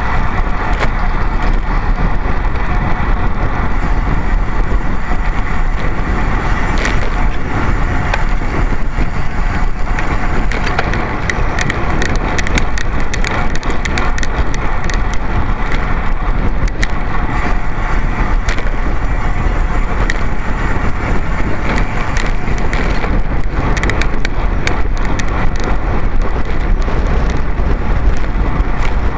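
Steady wind rush and road noise on the microphone of a camera carried on a racing bicycle at race speed, with frequent small clicks and rattles.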